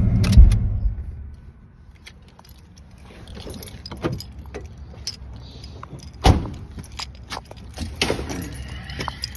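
Bass-heavy music from a car stereo's 10-inch subwoofer cuts off within the first second. Then come scattered clicks, rattles and knocks of someone moving about the car, with one loud knock about six seconds in.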